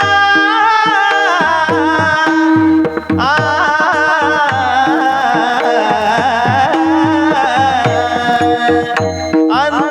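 Marathi kirtan chal: a voice sings an ornamented devotional melody with long held, gliding notes over a steady hand-drum rhythm and a sustained held note underneath. The line breaks off briefly about three seconds in and a new phrase begins.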